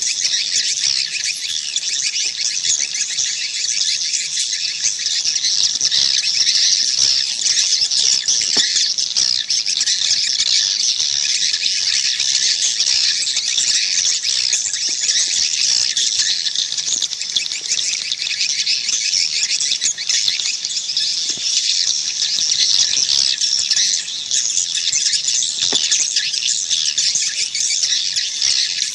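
A dense, unbroken chorus of edible-nest swiftlets twittering and chirping. It is a swiftlet call ('panggil') recording of the kind played to lure swiftlets into a swiftlet house.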